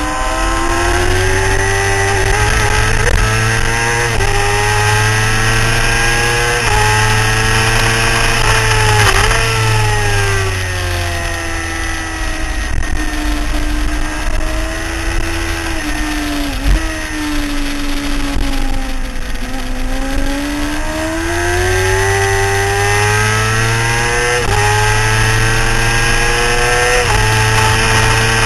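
Sport motorcycle engine heard from onboard at track speed. Its note climbs with short breaks at gear changes, falls away for about ten seconds as the bike slows, then climbs hard again toward the end, over steady wind rush.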